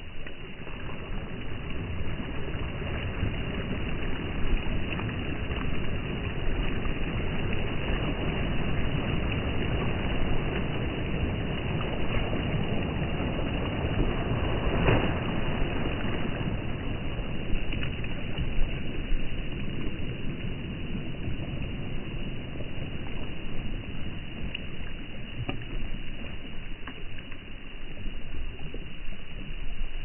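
Small sea waves breaking and washing up over sand and pebbles in a steady rush that swells and ebbs, with a louder surge about halfway through.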